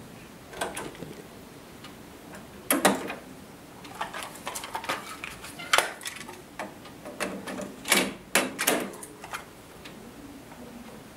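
A Technics M65 cassette deck's eject button pressed and its cassette door opened and shut, with plastic cassette cases handled and a tape loaded. A string of sharp plastic clicks and clatters, the loudest about three seconds in and near six seconds, then a quick cluster about seven to nine seconds in.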